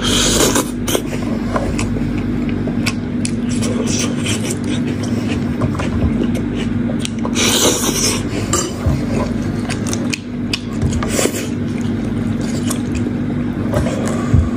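Close-miked eating sounds: wet chewing, sucking and tearing of meat from a spiced whole sheep's head pulled apart by hand, full of small clicks and smacks. Two louder noisy sucks, at the start and about seven seconds in, over a steady low hum.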